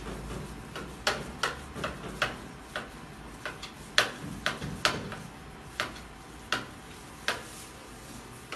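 Kitchen knife chopping boiled potatoes on a wooden cutting board: about a dozen sharp, irregular knocks of the blade on the board, stopping shortly before the end.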